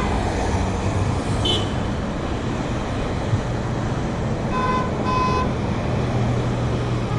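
Road traffic with passing car engines, and two short car horn toots close together about four and a half seconds in.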